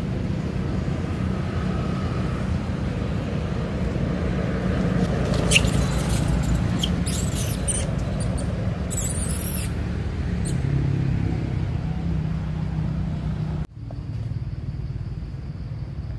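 High-pitched squeaks and short squeals from a baby long-tailed macaque, a cluster of them in the middle, over a steady low rumble.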